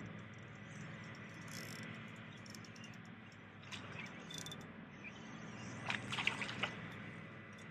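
Faint water and outdoor background noise on a calm lake, with a few light clicks and a brief cluster of louder clicks about six seconds in.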